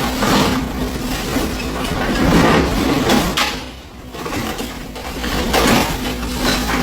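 Excavator engine running under load, with repeated scraping and crashing of rubble and building material as a house is torn down. The sound eases briefly about four seconds in.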